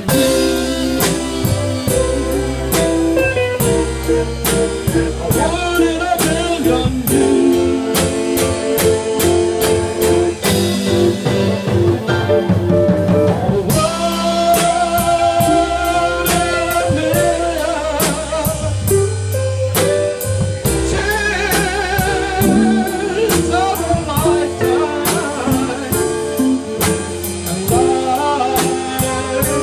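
Live blues band playing: electric guitar over a drum kit keeping a steady beat, with a man singing in places.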